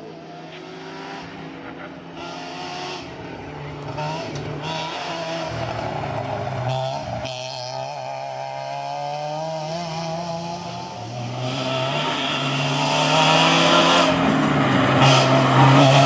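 Citroën Saxo rally car's engine revving hard and shifting through the gears at racing speed, the pitch climbing and dropping with each shift. It grows louder over the last few seconds as the car comes closer.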